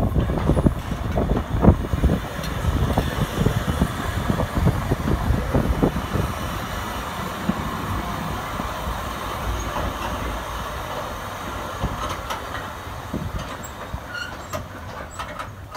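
Vintage railway carriages rolling slowly along the platform, wheels knocking and clattering over the track. The sound fades gradually as the train draws away, and the knocks thin out after about six seconds.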